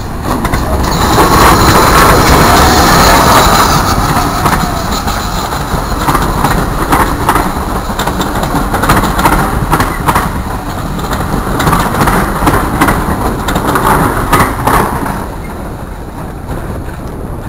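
GWR 56xx class 0-6-2 tank steam locomotive No. 5619 and its coaches passing close by. It is loudest as the engine goes past, with a high hiss for a couple of seconds, then the coaches roll by with repeated clicks of wheels over the rail joints, fading near the end.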